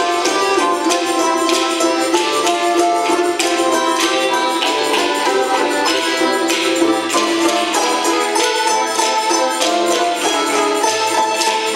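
Russian folk-instrument ensemble of domras, balalaika, guitars and accordion playing a lively dance tune, the plucked strings strummed and tremoloed over held accordion chords in a steady beat.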